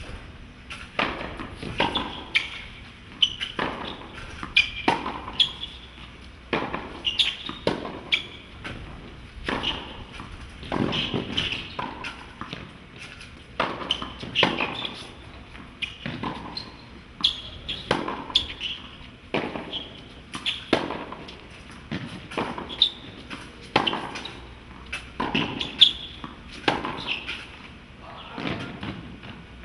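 Tennis rallies on a hard court: repeated sharp pops of the ball struck by rackets and bouncing on the court, about one every second, with players' shoe sounds between hits.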